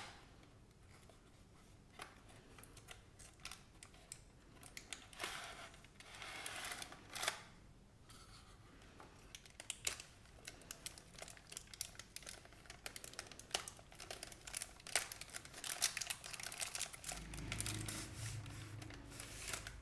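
Printed foil wrapper of a chocolate bar crinkling and tearing as it is peeled open by hand, in irregular crackles and rustles, along with handling of the cardboard and plastic packaging.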